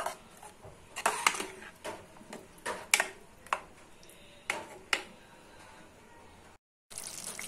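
Metal ladle stirring thick simmering curry in a pressure cooker, clinking and scraping against the pot in a series of sharp knocks over the first five seconds. Near the end, after a brief break, the curry bubbles with a steady hiss.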